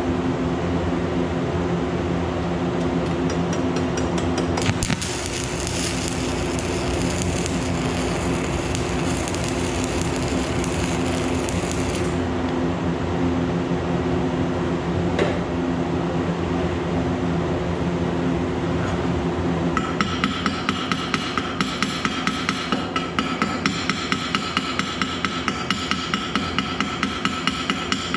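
Stick-welding arc crackling for several seconds before it cuts off suddenly, over a steady electrical hum. Later comes a rapid, even hammer tapping on the metal, about three blows a second.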